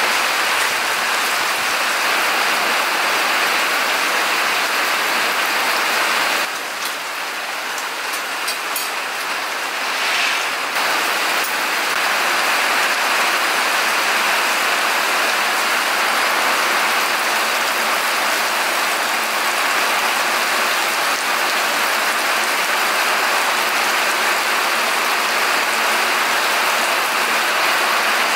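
Steady rain falling, a dense even hiss, which drops in level for a few seconds about six seconds in before returning.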